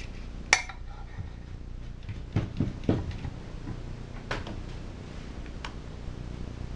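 Metal tools and engine parts being handled and set down on a workbench: a sharp clank about half a second in, a quick cluster of knocks between two and three seconds in, and a couple of single clicks later, over a low steady hum.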